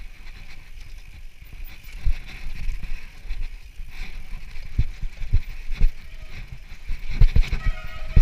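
Mountain bike rolling down a dry dirt singletrack: a steady rolling noise from the tyres, with low knocks as the bike hits bumps and roots, several in quick succession near the end.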